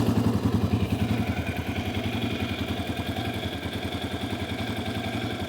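Yamaha Raptor 700R's single-cylinder four-stroke engine idling steadily, warm after five minutes at idle, with an even beat of firing pulses.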